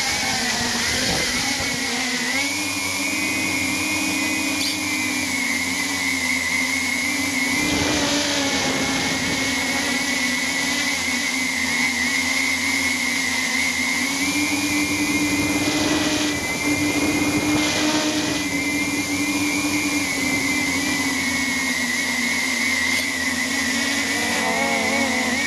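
Walkera UFO MX400 quadcopter's motors and propellers whining steadily in flight, heard from a camera mounted on the airframe. The pitch climbs over the first couple of seconds as it lifts off, then shifts slightly up and down several times as the throttle changes.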